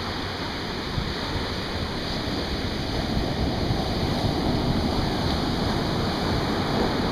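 Atlantic Ocean surf breaking and washing up a sandy beach: a steady rushing wash of waves that swells louder about halfway through as a wave breaks.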